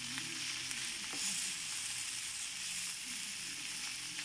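Beef strips, bell peppers and onion sizzling in a frying pan as they are stirred with a wooden spoon, with a steady hiss and a few faint clicks of the spoon.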